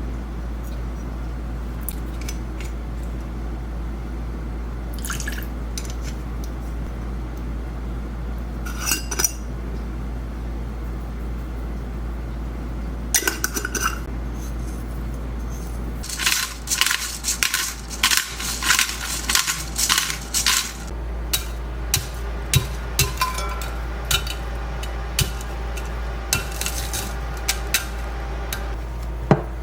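Kitchen preparation sounds: utensils clinking against dishes, scattered at first, then a quick run of clinking about halfway through and more near the end, over a steady low hum.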